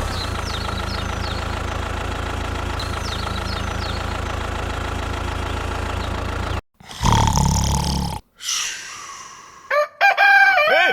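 Engine idling with a steady, even hum for about six and a half seconds, then cutting off abruptly. It is followed by a short louder burst and, near the end, pitched tones that slide up and down.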